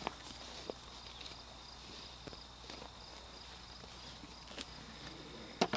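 Faint steady high chirring of field insects, with scattered light clicks and taps of gear being handled at the shooting bench. A quick run of louder clicks comes near the end.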